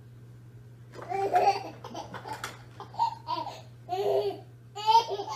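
A baby laughing in repeated high-pitched bursts, starting about a second in.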